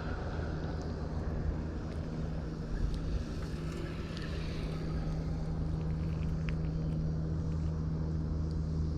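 A motor running steadily, a constant low hum that holds one pitch throughout.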